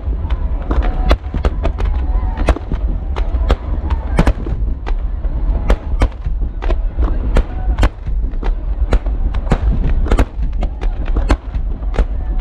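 Aerial fireworks going off in rapid succession, sharp bangs about two to three a second over a deep rumble, with crowd voices underneath.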